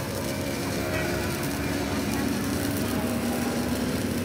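Electric arc welding on steel: the steady crackling sizzle of the arc, with a steady low hum underneath.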